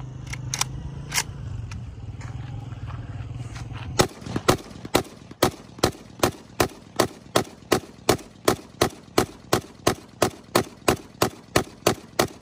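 AK-47 assault rifle firing on semi-automatic: about four seconds in, a quick, even string of single shots begins, roughly two or three a second. Before the shooting there is a steady low hum and a few light clicks.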